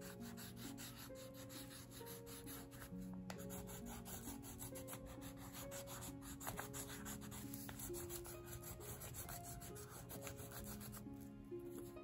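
Watercolor crayon rubbing and scratching on journal paper in rapid back-and-forth scribbling strokes, easing off near the end. Soft background music of held notes plays underneath.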